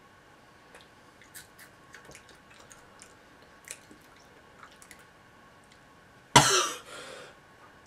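Faint scattered crunching clicks of a mouthful of dried crickets being chewed, then a loud cough about six seconds in as the eater reacts to the taste.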